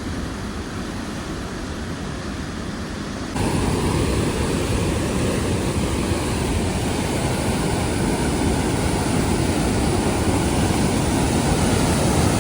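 Steady rushing of a waterfall, which jumps louder abruptly a little over three seconds in and then holds steady.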